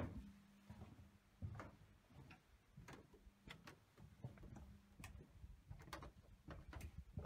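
Near silence broken by faint, irregular light taps and clicks, roughly one or two a second, over a faint steady low hum.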